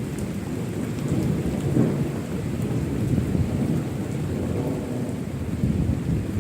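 Thunder rumbling low and continuously over steady rain, the rumble swelling and easing without a sharp crack.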